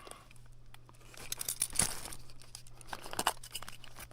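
Packing wrap crinkling and tearing as an item is unwrapped by hand, in irregular rustles with a few small clicks.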